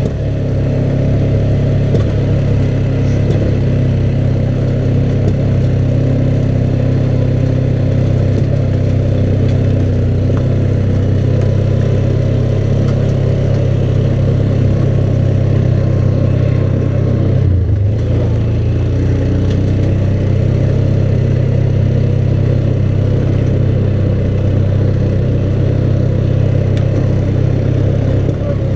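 ATV engine running steadily while riding along a rough trail, its note dipping briefly about two-thirds of the way through and then picking back up.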